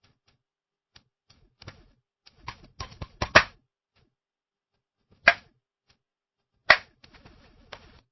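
Flashbulbs popping: a run of sharp pops and small clicks, thickest and loudest about three seconds in, then two more single loud pops at about five and seven seconds, the last trailing off in faint crackle.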